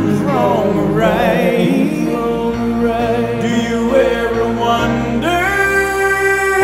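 A song playing: held chords with a wavering melody line over them, in a break between sung lines.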